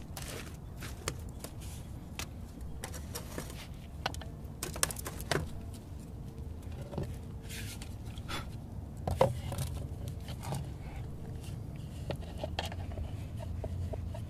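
Fired clay cookware being handled on a mud-brick hearth: light clinks, knocks and short scrapes scattered throughout, the loudest knock about nine seconds in, over a low steady background rumble.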